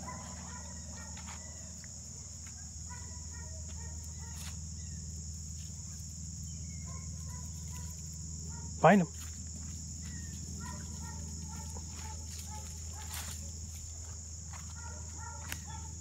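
Steady, high-pitched insect chorus with faint scattered chirps and light rustles and clicks underneath.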